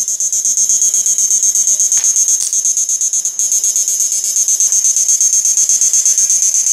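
High-voltage arc sparking between the output leads of a 7000 W electric fish-shocking machine: a loud, steady, high-pitched buzz with a fast flutter, and a couple of sharper snaps about two seconds in.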